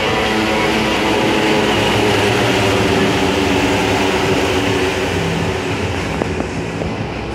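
Indonesian bus telolet horn sounding a long call: several horn tones held together, changing notes now and then, over the bus's engine noise. It eases off slightly near the end.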